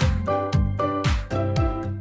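Upbeat background music with a steady kick-drum beat and bright melodic notes.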